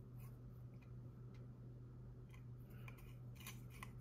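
Faint, scattered ticks and scrapes of a small screwdriver turning screws into the thin metal low-profile bracket of a PCIe WiFi card, over a steady low hum.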